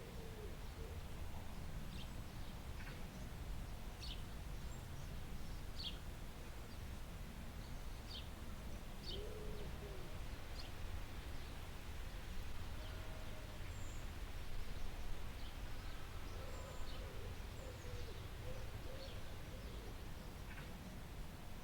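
Birds calling faintly: short high chirps every second or two, with a few lower arching notes, over a steady low background rumble.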